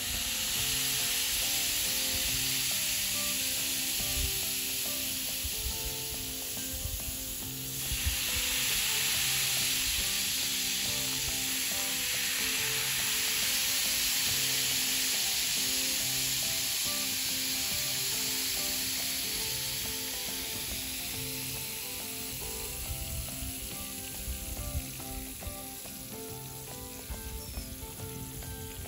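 Vinegar poured over a baking-soda 'moon rock', fizzing steadily as the baking soda reacts and foams. The fizz dips briefly about eight seconds in, swells again, and slowly fades over the last third.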